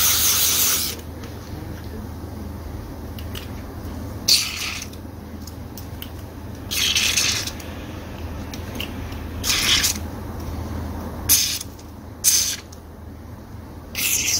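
Aerosol carburetor cleaner hissing in a series of short sprays, about seven bursts a second or two apart, some nearly a second long and some brief. The spray is flushing the tiny fuel passages of a chainsaw carburetor, where any single clogged hole causes running problems.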